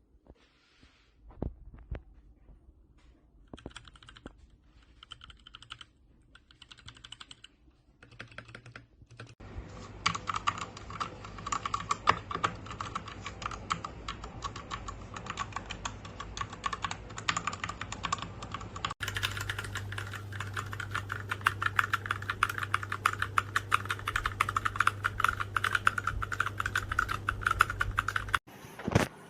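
Royal Kludge RK61 mechanical keyboard being typed on. At first come a few scattered keystrokes and short bursts, then fast continuous typing from about a third of the way in, stopping shortly before the end.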